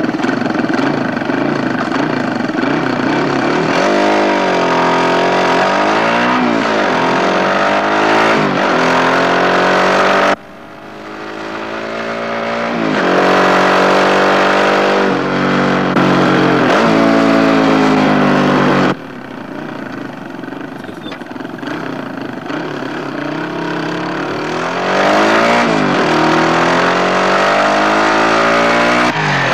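Dirt bike engine revving hard on a steep hill climb, its pitch rising and falling over and over with the throttle. The sound changes abruptly twice, about a third and two-thirds of the way through.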